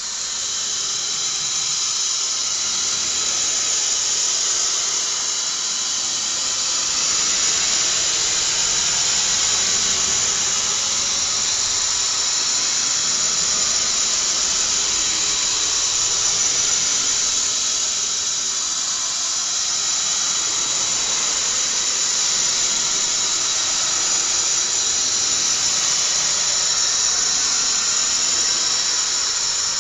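Loud, steady high-pitched hiss with a squealing edge, a horror sound effect that holds unbroken throughout.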